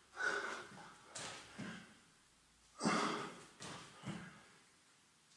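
A man breathing hard from exertion during a high-intensity bodyweight workout: a string of short, heavy exhalations, roughly one or two a second, stopping about a second before the end.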